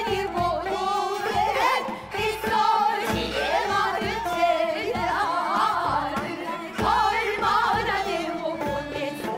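Women's voices singing a Korean folk song (minyo) in traditional gugak style, the pitch wavering and bending through long held notes, with musical accompaniment beneath.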